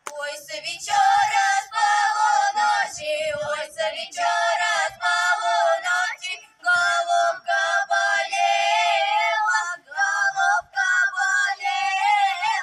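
A girls' folk ensemble singing together into microphones through a PA, a high melody in phrases with short breaths between them; the song ends near the end.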